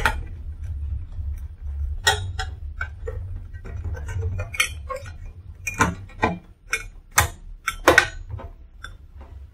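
Scattered clicks and knocks of plastic and sheet metal as the battery tray's front connector panel is pressed back into a UPS to seat its connectors, with a cluster of sharper clicks about six to eight seconds in.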